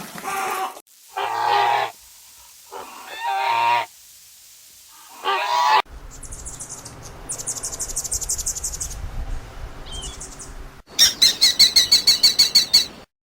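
A run of animal sound clips played one after another. First come three short pitched calls, then small birds chirping over outdoor background noise, then a loud, rapid run of about a dozen calls near the end.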